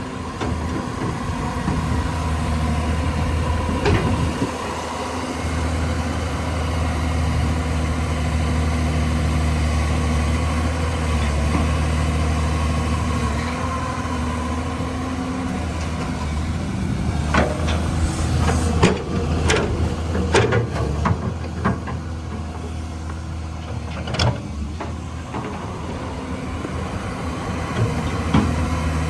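Caterpillar 320 excavator's diesel engine running steadily. Several sharp knocks and clanks come partway through.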